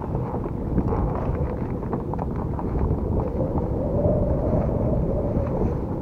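Strong wind buffeting the microphone: a steady low rumble with a faint howl in the second half.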